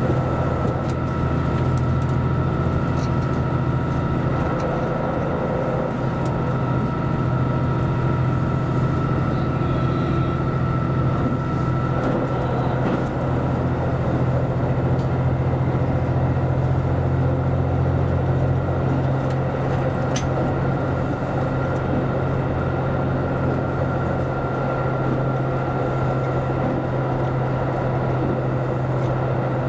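JR Central Series 85 diesel railcar running at speed: a steady low drone from its diesel engine mixed with wheel-on-rail rumble, with a thin steady whine and a few faint clicks over it.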